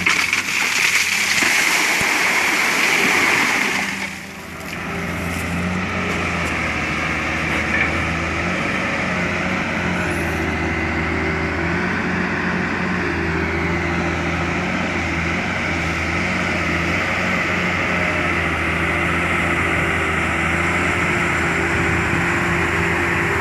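Caterpillar 325L excavator tipping a bucket of wet river gravel into a steel dump-truck body: a rush of stones and water for about four seconds. Then the excavator's diesel engine runs steadily.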